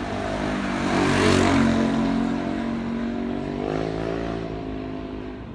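Small motorbike passing close by, its engine note dropping as it goes past, then rising again about three and a half seconds in as it pulls away.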